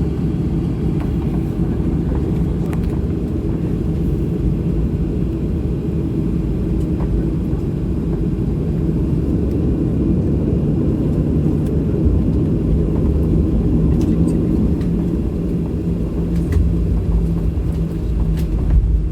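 Cabin noise inside a Boeing 737-800 with its CFM56-7B engines running at low power on the ground. It is a steady low rumble with a constant hum, and a few faint clicks and rattles.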